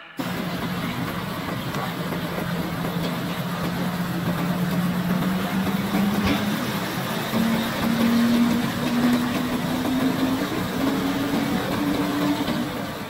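Vacuum excavator truck's diesel engine running as the truck drives off, its pitch climbing slowly in small steps.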